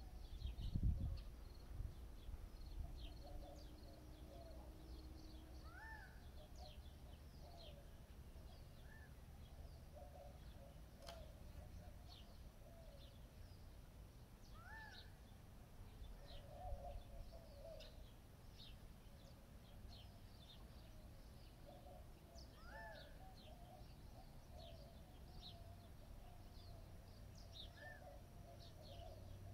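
Several birds singing and calling by a river: a steady scatter of short high chirps, a rising call repeated every several seconds, and lower chattering, over a faint low rumble. A brief low bump about a second in.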